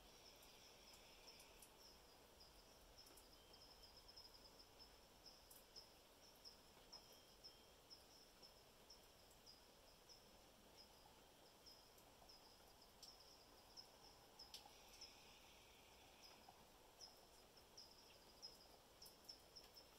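Near-silent outdoor quiet with faint, high chirping repeated about twice a second.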